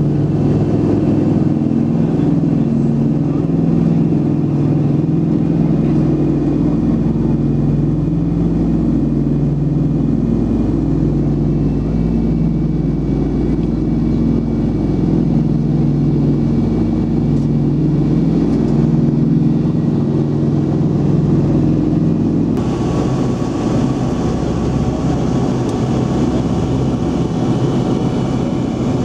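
Multi-engine propeller aircraft droning steadily in flight, heard from aboard, its engine tones pulsing slowly and regularly as they beat against each other. Near the end the drone changes abruptly to a thinner, hissier cabin sound.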